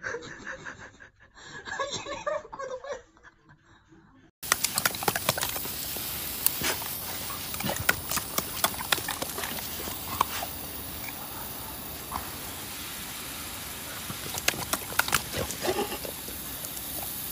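Garden hose spray nozzle spraying water, a steady hiss that starts suddenly about four seconds in, with many sharp clicks and splashes through it. Before that, only faint sounds.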